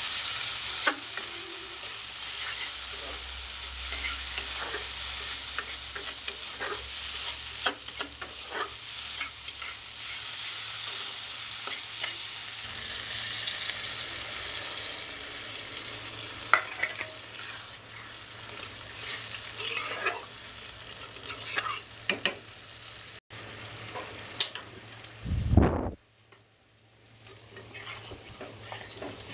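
Prawns frying and sizzling in oil in a pan while a metal spatula stirs and scrapes against it. Near the end there is a brief loud low rumble, after which the sizzle drops much quieter.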